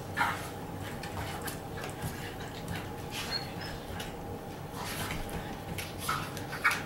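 Belgian Malinois puppy tugging and scrambling on a hardwood floor, its claws clicking and scuffing in quick irregular taps, with a few short squeaks about a second in and twice near the end.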